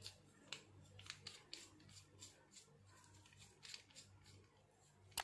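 Faint clicks and light rattles of a black metal Atlas-type bipod being handled while its legs are tried for how they extend, with one sharper click near the end.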